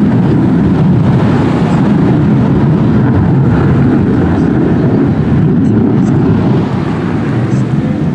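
F-35 fighter jet's engine roar: a loud, steady low rumble that eases a little near the end.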